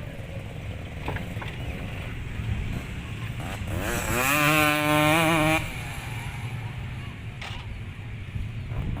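Motocross bike engines running under a steady low rumble; about four seconds in, one bike revs up close by, holds high revs with a wavering pitch for under two seconds, then drops off sharply as the throttle is released.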